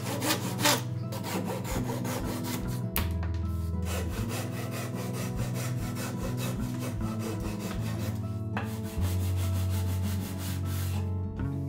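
A hand tool scraping wood in quick, even strokes, over soft background music.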